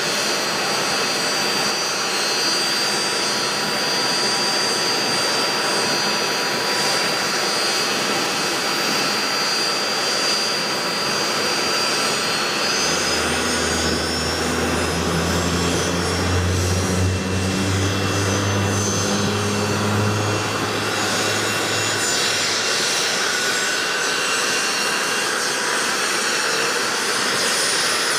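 Sikorsky Seahawk helicopter's twin turboshaft engines and rotors running on the ground: a steady jet-like rush with a high turbine whine that climbs in pitch from about a third of the way in, as the engines spool up. A low hum joins for several seconds in the middle.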